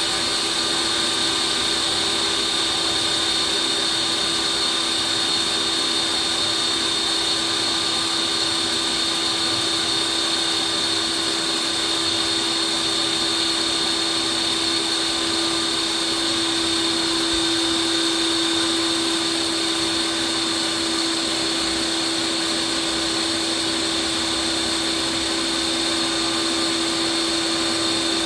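Ninja Creami ice cream maker running its Lite Ice Cream program, its blade spinning down through a frozen pint of ice cream base: a steady motor whine over a lower hum, unchanging throughout.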